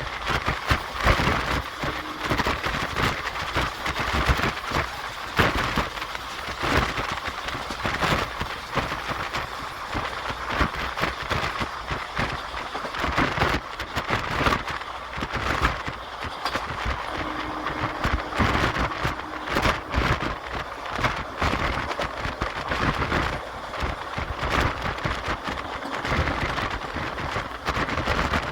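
Indian Railways Intercity Express passenger coach running along the line, heard at an open window: a steady rush of wind and rumble with irregular knocks and clatter from the wheels and running gear.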